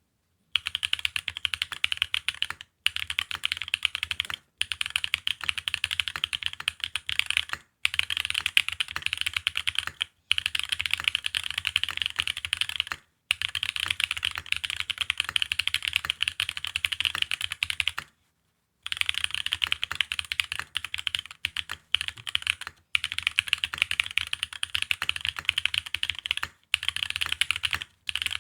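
Fast typing on an F1-8X mechanical keyboard with Holy Panda tactile switches in Cherry housings, mounted on an aluminium leaf-spring gasket plate. Dense runs of key clacks come in bursts, broken by short pauses every two or three seconds and a longer pause a little past the middle.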